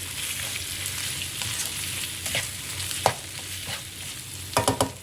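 Prawns and fish cake sizzling steadily in hot oil as they are stir-fried, with a few sharp clicks of the stirring utensil against the pan and a quick run of them near the end.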